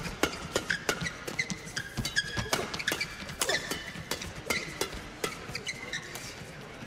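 Fast doubles badminton rally: rackets strike the feathered shuttlecock in quick exchanges, several sharp hits a second, with short high squeaks of shoes on the court mat.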